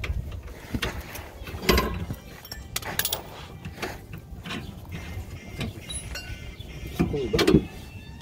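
Scattered metallic clicks, clinks and knocks of hand tools and bolts on a car's rear suspension hardware during work underneath, with sharper knocks about two seconds in, about three seconds in and near the end.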